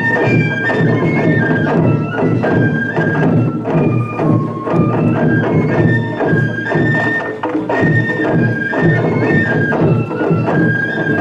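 Japanese transverse bamboo flutes (shinobue) playing a melody in unison over taiko drums beating a steady rhythm.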